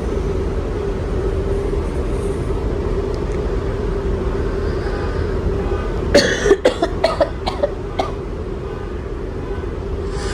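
Steady low drone and hum of a passenger ferry's engines. About six seconds in comes a quick run of about six sharp, short sounds over two seconds.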